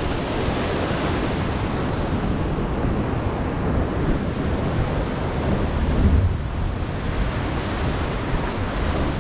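Sea waves surging and breaking against the rocky base of a cliff: a steady wash of surf, with a louder surge about six seconds in.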